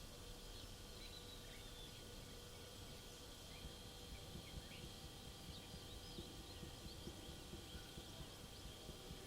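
Faint rural outdoor ambience: scattered short bird chirps over a steady high-pitched drone, with light irregular ticking in the second half.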